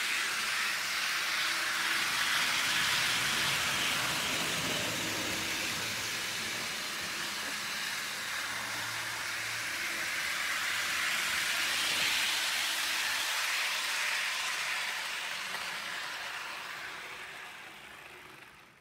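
H0 model train running: a Lima BB 17000 electric locomotive drawing four double-deck coaches, with a steady whirr of its motor and wheels on the rails. The sound swells twice as the train passes close, then dies away near the end.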